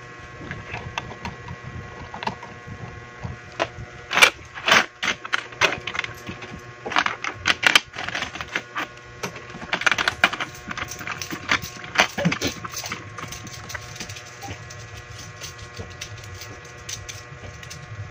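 Metal coins clicking and clinking against each other as they are picked off stacks and handled, in several quick flurries of sharp clicks that thin out near the end, over a steady electric hum.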